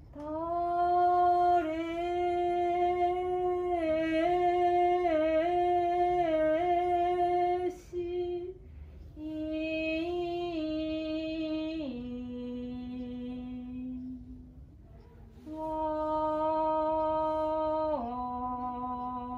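Shirabyōshi song sung in long, drawn-out notes with small wavering ornaments, in three phrases with short breaths between; the pitch steps down near the end of the second and third phrases.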